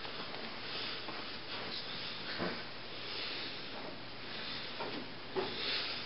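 Quiet room tone with a steady faint hiss and a few soft rustles and knocks scattered through it.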